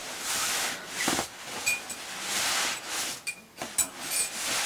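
Nylon sleeping bag rustling in repeated surges as it is pushed by hand into its tight stuff sack.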